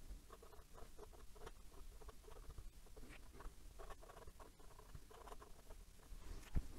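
Extra-fine steel nib of a fountain pen scratching faintly across notebook paper in short, irregular strokes as cursive is written, with one sharper tick near the end.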